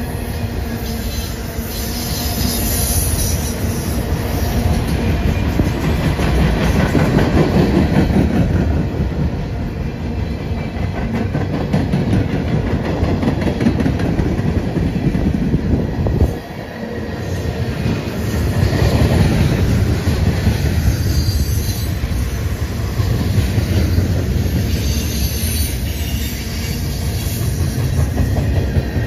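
Freight cars of a passing mixed freight train rolling by close to the track: a continuous heavy rumble of steel wheels on rail that swells and eases as autoracks, flatcars and tank cars go past, with a brief sudden dip about halfway through.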